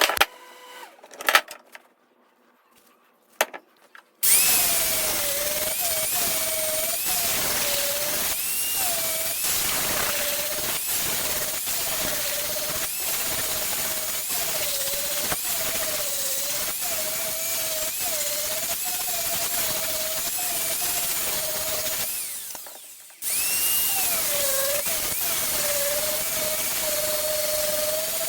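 A few sharp knocks, then an electric power tool works on a wooden cricket bat, its motor pitch dipping and recovering as it is pressed into the wood. Near the end it winds down and is switched on again about a second later.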